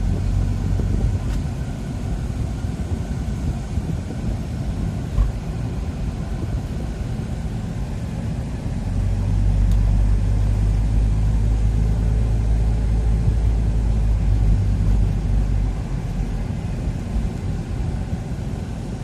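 Car cabin noise while driving: a steady low rumble of road and engine noise that swells louder for several seconds in the middle, with a single light knock about five seconds in.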